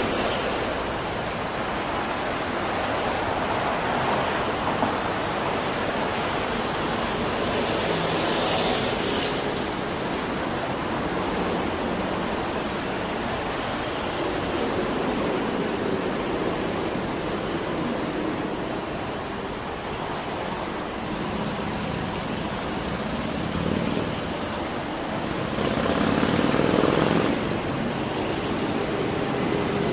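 Steady street traffic noise: an even rush from idling and passing vehicles, with a short hiss about nine seconds in and a louder swell near the end.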